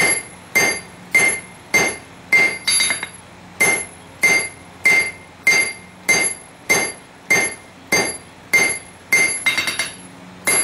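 Hand hammer striking a hot stainless steel billet on an anvil in a steady rhythm, a little under two blows a second, each blow ringing with a bright metallic tone. The billet, made of layered surgical steel, is being drawn out by hand forging.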